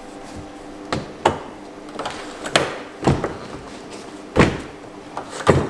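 A handful of irregular clunks and knocks, about six in all, from a car door being handled.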